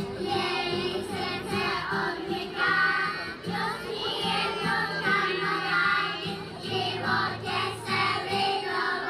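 A group of preschool children singing a song together, with an acoustic guitar accompanying them.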